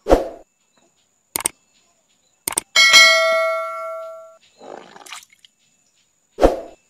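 Subscribe-button sound effects: two sharp clicks, then a bright bell chime that rings out and fades over about a second and a half. Short noisy bursts come before and after it, among them the splash of a plastic toy tiger dropping into pond water.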